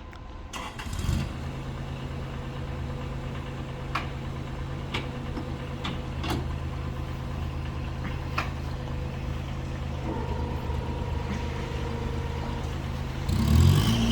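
Bobcat S70 skid steer loader's diesel engine catching about a second in and then idling steadily, with a few sharp clicks over the idle. It revs up near the end.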